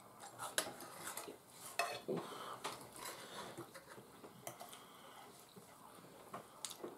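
Forks clinking and scraping against a metal tray and a plate as noodles and egg are lifted, in quiet, irregular light clicks.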